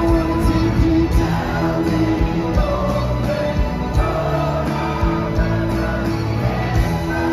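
A live rock band playing in an arena, heard from within the crowd: held chords over a steady drum beat, with singing.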